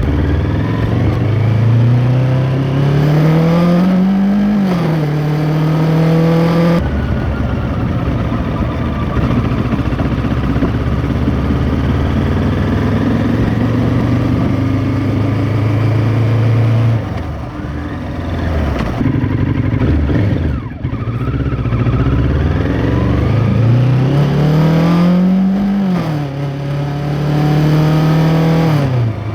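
2023 Kawasaki Ninja 650's parallel-twin engine through an Arrow X-Kone exhaust, heard from under the seat cowl. It pulls up through the revs and shifts up twice: once about four seconds in, and again near the end. In between it runs steady, then eases off and dips for a few seconds about two-thirds of the way through.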